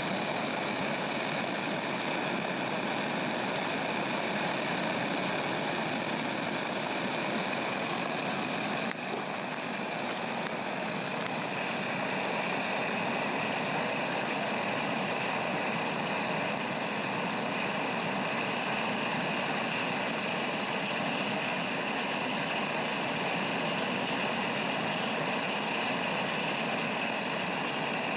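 Hand-held cassette-gas burner torch running steadily, a constant jet roar with a faint high whistle, blasting flame into a Swedish torch log; the flow drops briefly about nine seconds in.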